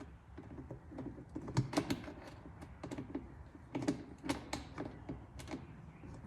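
Light, irregular clicks and taps of a small bicycle tool wrench working a nut, several a second.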